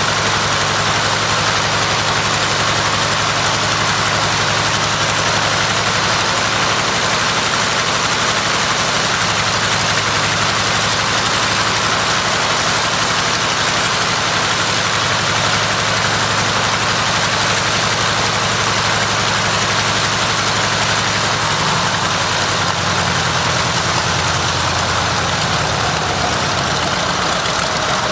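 Nakajima Sakae fourteen-cylinder two-row radial engine of a Zero fighter running steadily on the ground at low power, with its propeller turning. Its note wavers and shifts in the last few seconds.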